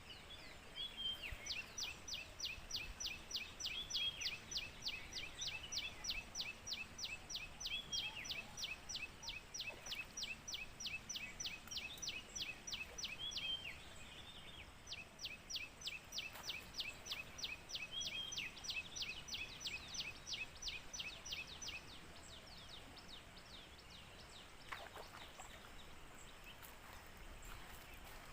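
A bird calling a long, regular series of short, high, down-slurred notes, about four a second, with a brief break about halfway, and another bird chirping now and then over faint outdoor background noise.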